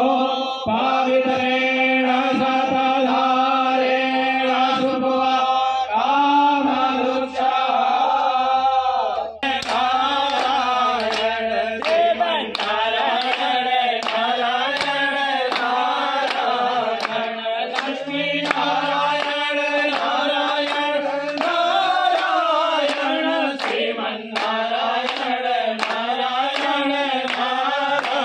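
A group of men's voices chanting in unison on steady held notes. About nine seconds in, this switches abruptly to a livelier Hindu devotional song sung by the group, with regular hand claps keeping time.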